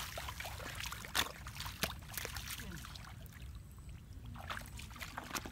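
Shallow muddy water splashing and trickling as feet wade through it and hands grope in the mud, with a few sharp splashes, the loudest just over a second in.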